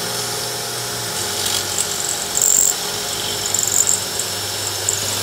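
Cordless drill boring into chimney brick, running steadily and surging louder briefly twice near the middle.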